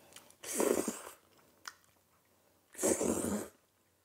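Close-miked eating of a fried, mozzarella-filled piece of Spam: two breathy, noisy bursts about two seconds apart, over quiet chewing.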